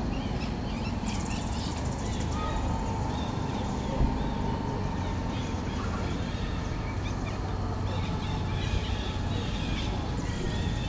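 Outdoor woodland ambience: a steady low rumble under many short, high chirping calls, with one sharp click about four seconds in.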